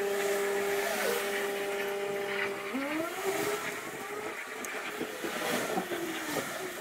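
A steady motor hum that breaks off a little under three seconds in, followed by wavering tones that glide up and down.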